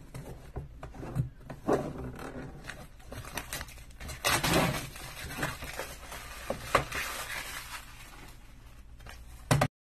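Picture frames handled on a tabletop as they are opened: scattered knocks, clicks and scraping of the frame and its backing against the table and hands, with a longer scrape about four seconds in. The sound cuts off suddenly near the end.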